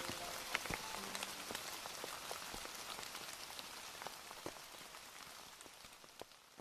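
Steady rain, an even hiss with scattered sharp drops, fading out gradually near the end.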